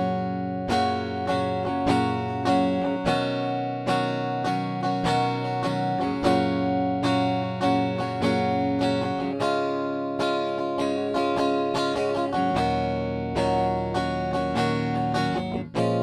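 Mclorence JP100 electric guitar played clean through its neck humbucker: picked chords and single notes, several a second, each ringing into the next.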